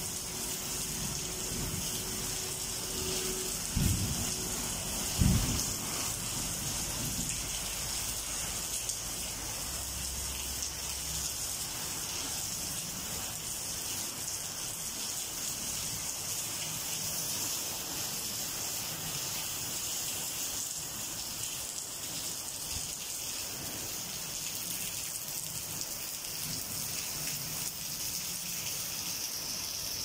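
Steady rain falling, an even hiss, with two short dull thumps about four and five seconds in.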